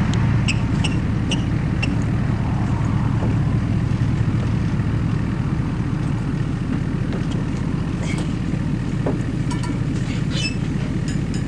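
Engine of a vehicle towing a hay trailer, running steadily at low speed with a low rumble, with a few light clicks and rattles over it.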